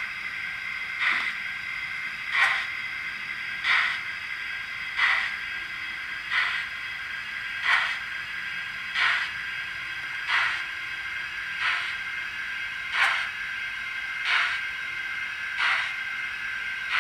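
Model steam locomotive sound decoder playing recorded exhaust beats of the preserved Southern Railway 'Lord Nelson' 4-6-0 through the model's small 28 mm speaker: slow, evenly spaced chuffs about every 1.3 seconds over a steady hiss, as the locomotive drifts along at low speed.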